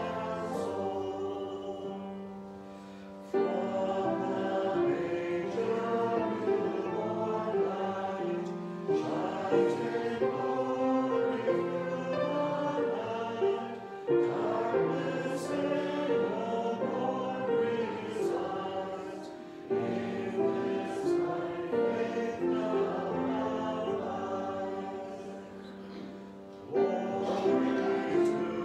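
A group of voices singing a hymn in long held phrases, with short breaks between the phrases.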